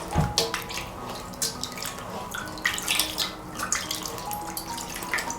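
Water splashing and dripping in irregular splashes as a salt-scrubbed pomelo is washed by hand in a basin of water.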